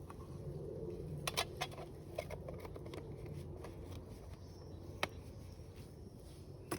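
Wood fire in a Dakota fire hole crackling, with a few sharp pops about a second and a half in, at about five seconds and at the end.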